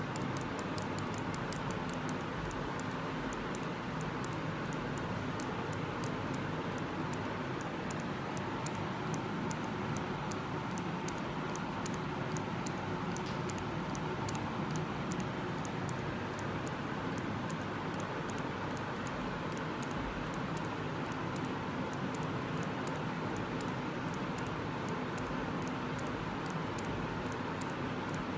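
Socorex automatic syringe being pumped over and over, its trigger and plunger mechanism making a steady run of light clicks, a couple a second, as the attached counter tallies each stroke. A steady background noise runs underneath.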